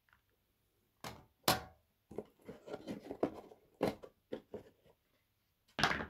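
A cardboard phone box and its molded packaging insert being handled, with irregular scrapes, knocks and rustles as the insert tray is lifted out. The loudest knocks come about a second and a half in and just before the end.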